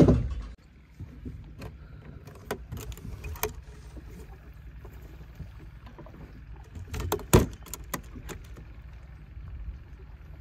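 Rope and metal fittings at the bow of a trailered boat clicking and knocking as the bow line is tied down, over a steady low rumble. There is a heavy thump at the start and another loud knock about seven seconds in.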